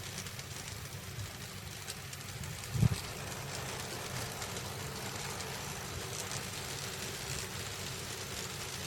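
N-gauge model trains running on the track: a steady low rumble of motors and wheels with faint ticking, and one short loud thump about three seconds in.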